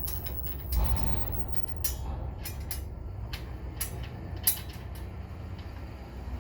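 Scattered clicks and small knocks of metal parts being handled as a blade is fitted onto a DeWalt DCS577 rear-handle circular saw, with a sharper knock about four and a half seconds in, over a steady low rumble.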